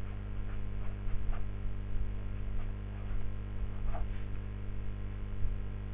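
Steady low hum, with a few faint scratches of a marker pen writing on paper.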